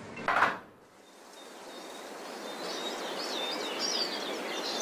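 A short burst of noise just after the start, then an outdoor background fading up with small birds chirping, the high quick calls growing from about halfway through.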